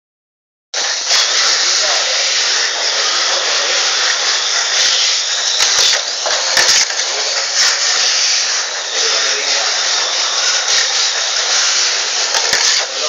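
Tamiya Mini 4WD cars running along a plastic track: a steady, dense buzz from their small electric motors and gears, with frequent sharp clacks as the cars' rollers and bodies strike the lane walls.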